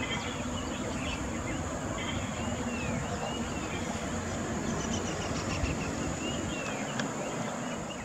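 Outdoor nature ambience: a steady high-pitched insect drone, with short bird chirps that rise and fall in pitch, repeated every second or so over a low background rumble.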